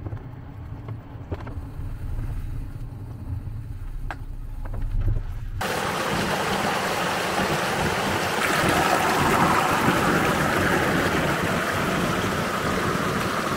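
A low rumble with a few light clicks. About six seconds in it cuts suddenly to the steady rush of a river flowing over stones, which grows louder a couple of seconds later.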